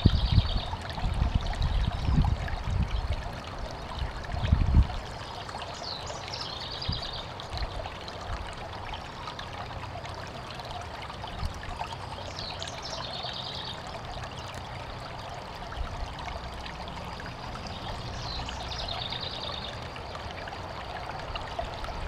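Shallow mountain stream trickling and burbling over rocks, a steady rush of water. Low rumbling gusts, the loudest sound, come in the first five seconds. A short high call repeats four times, about six seconds apart.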